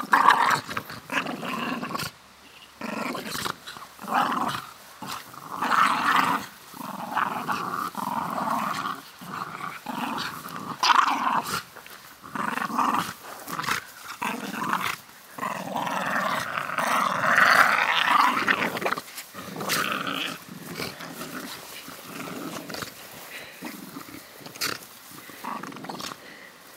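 Staffordshire bull terriers growling in play while tugging on a fabric tug toy, in repeated short bursts with one longer stretch of growling about two-thirds of the way in, then quieter near the end.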